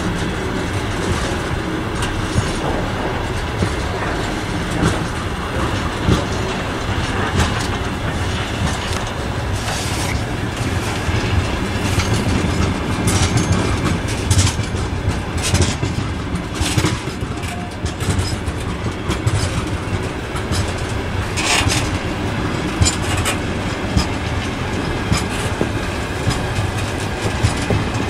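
Freight train's open gondola wagons rolling past close by: a steady rumble of steel wheels with rhythmic clicks as the bogies cross rail joints, and sharp metallic clanks and brief squeals now and then, most of them in the middle.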